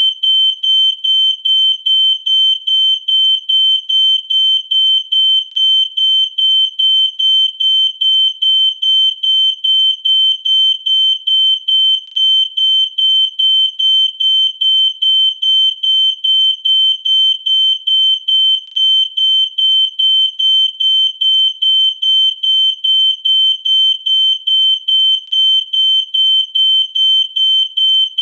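Smoke alarm going off: a loud, high-pitched beep repeating about twice a second without a break.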